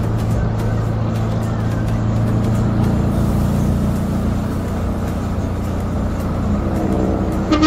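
Minibus engine running steadily on the road, a low, even drone. A short vehicle horn beep sounds at the very end.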